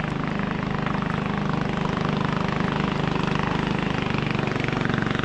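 An engine running steadily at an even speed, its level rising slightly.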